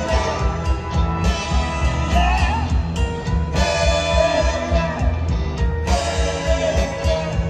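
Live rock band playing: a drum kit keeps a steady beat under electric guitar, with sliding pedal steel guitar lines over the top.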